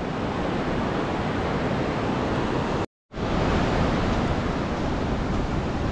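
Steady rush of a mountain river, the Madhuganga, in spate. The sound cuts out for a moment about halfway through, then resumes unchanged.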